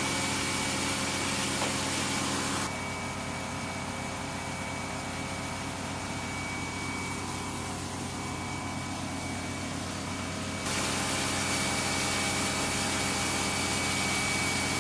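Steady machinery drone of flight-line equipment with a thin high whine over it, while a KC-135 Stratotanker is being fuelled. The sound drops a little in level about three seconds in and comes back up near eleven seconds.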